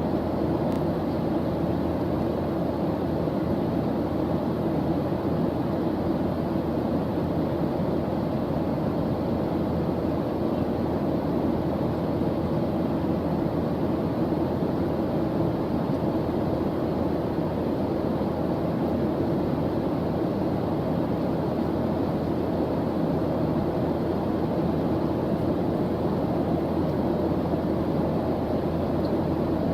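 Steady white-noise background track: an even, unchanging rushing hiss with a deep, rumbly tone and no other events.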